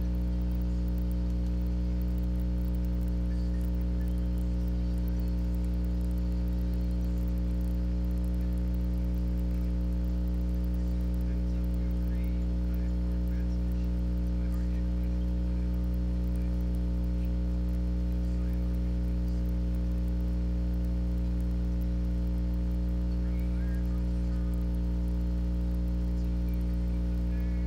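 Steady electrical mains hum: a low, unchanging buzz made of many evenly spaced overtones.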